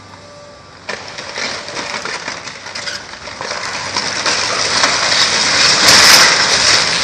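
A wooden building collapsing as an excavator pulls it down. Timber cracks and splinters from about a second in, building to a loud crash as the roof and walls fall near the end.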